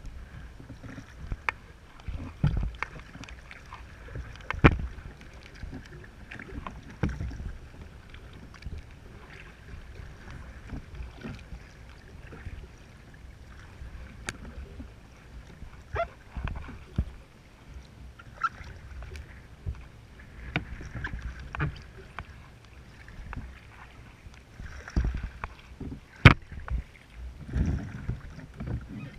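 Choppy water slapping and splashing against a kayak's hull as it is paddled, with irregular low thumps and scattered sharp knocks.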